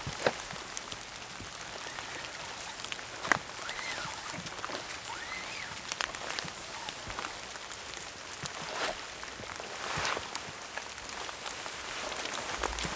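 Heavy rain falling steadily, with many individual drops ticking close by and an occasional louder drip.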